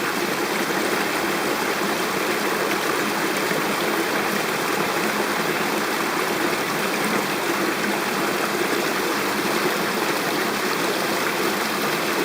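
Mountain stream water rushing steadily, an even unbroken hiss.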